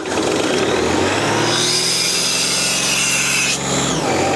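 Diesel engine of an Ingersoll Rand portable air compressor being started on the key after preheating. It comes in suddenly and loud, runs up, and near the end settles into a steady run.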